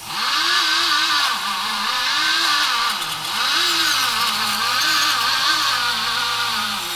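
Power tool spinning a buffing wheel against the aluminium cylinder head's exhaust port face, cleaning the gasket surface. Its whine sags and recovers over and over as the load on the wheel changes.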